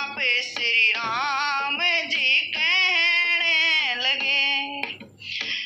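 A woman singing a Hindi devotional song (bhajan) solo, with long held notes that waver in pitch and a short break about five seconds in.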